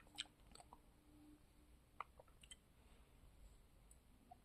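Near silence: room tone with a few faint, short clicks in the first few seconds.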